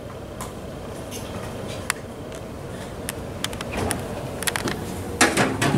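Steady low room hum with scattered light clicks and small knocks, and faint voices starting near the end.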